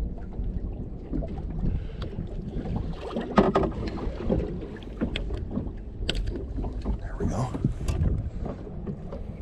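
Wind buffeting the microphone and water lapping against a small boat's hull, with scattered clicks and knocks of handling a fish.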